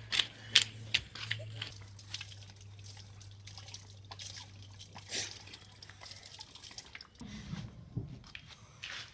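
Water from an outdoor wall tap splashing and dripping into a drain, with many short sharp spatters. A brief low rumble comes near the end.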